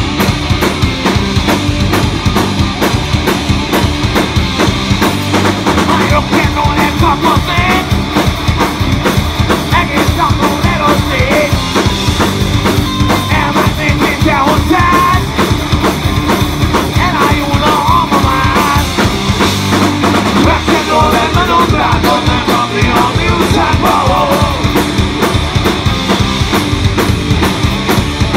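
Live rock band playing a rock and roll number: drum kit, electric bass and electric guitars, loud and steady throughout.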